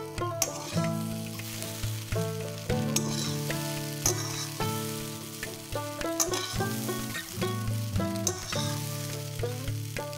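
Metal spatula stirring and scraping cooked semolina in a metal kadai, with a light sizzle from the pan and a few scrapes and taps against the pan's side, over instrumental background music.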